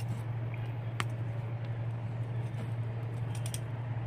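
Metal cooking tongs clicking a few times against hot charcoal and brick while potatoes are buried in the embers, over a steady low hum.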